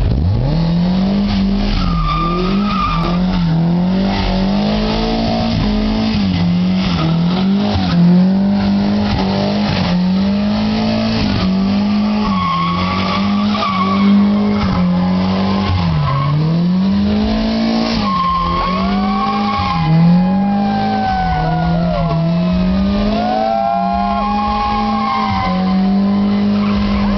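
Nissan S13 coupe drifting in tight circles: the engine is held at high revs, dropping and climbing back to the same ceiling every second or two, while the rear tyres squeal continuously and slide up and down in pitch. It passes closest three times, each a brief louder swell.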